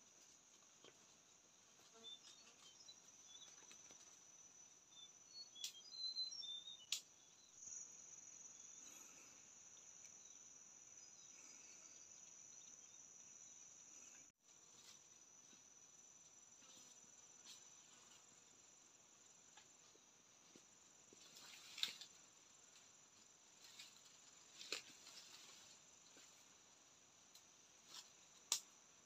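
Faint forest ambience: a steady high-pitched insect drone, with a few brief chirps near the start and scattered sharp cracks and rustles in the undergrowth.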